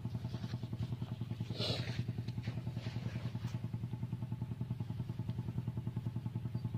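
Single-cylinder diesel engine of a walking tractor running steadily while the machine stands still, a fast even chug of about nine or ten beats a second. A short scuffing noise cuts in about a second and a half in.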